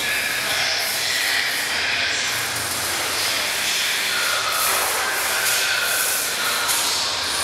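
A steady, loud hissing and rushing noise that does not change.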